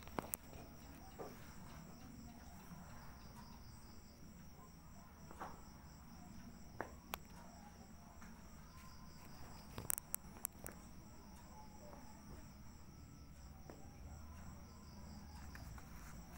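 Crickets chirping faintly and steadily in a high pulsing trill, with a few sharp clicks about ten seconds in.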